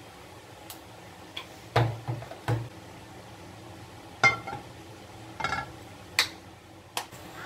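Non-stick frying pan being lifted, tilted and set back down on the gas hob's pan support: about six sharp metallic knocks and clanks, a few ringing briefly.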